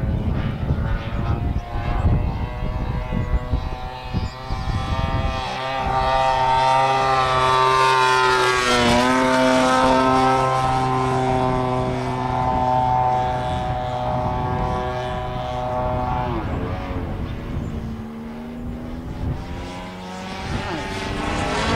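The 52cc Taurus gas engine of a large Extra 330L RC aerobatic plane flying overhead, its propeller note rising and falling as the plane manoeuvres. For the first few seconds a low rumbling noise covers it, then the engine note comes through clearly.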